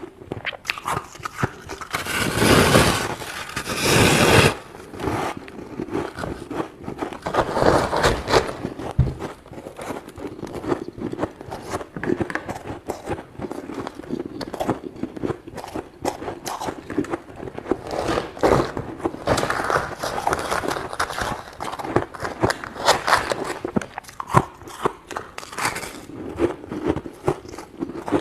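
Thick, crunchy freezer frost being scraped, a dense run of crackles and crunches with louder scraping strokes about two to four seconds in.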